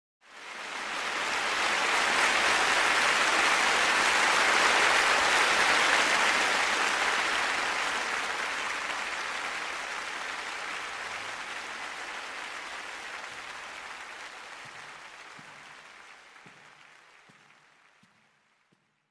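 Audience applauding, swelling in over the first couple of seconds and then slowly dying away to nothing near the end.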